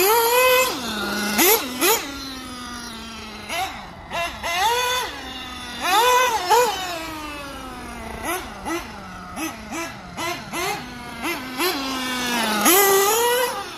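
Agama N1 1/8-scale nitro buggy's Nova B5R two-stroke glow engine, freshly broken in, revving in repeated rising and falling bursts as the buggy is driven, dropping back to a steady idle between them. About two-thirds of the way through comes a run of quick, short throttle blips, and near the end one long rev.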